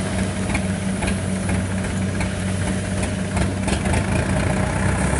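Rice combine harvester's engine running steadily while it cuts and threshes, with a few faint clicks in the middle.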